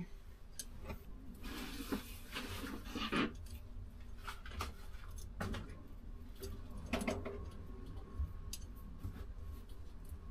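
Hands handling a thin wire and fittings on water-heater pipes: scattered small clicks and rustles, in a busier patch about two to three seconds in and again around five and seven seconds, over a faint low hum.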